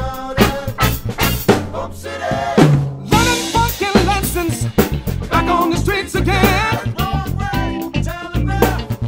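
A drum kit played live along to a funk band recording: snare, kick and cymbal strokes over the recorded band and singing, with a cymbal crash about three seconds in.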